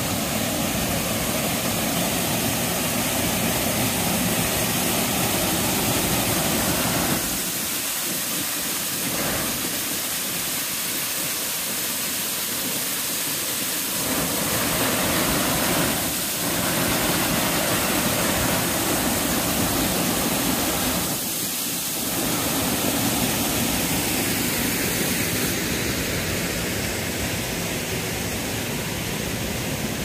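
Waterfall roaring: a loud, steady rush of falling water. Its deep rumble thins for a few seconds in the middle.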